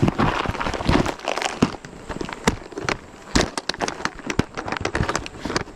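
Fishing tackle being rummaged through and handled: rustling, then a run of sharp clicks and rattles, thickest in the second half.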